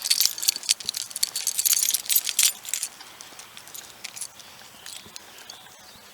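Rapid jangling and clinking of small hard objects for about three seconds, then a few scattered clicks.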